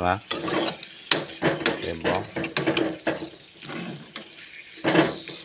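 A metal spatula scrapes and knocks against a frying pan as sliced potatoes are stirred and turned, in irregular clattering strokes.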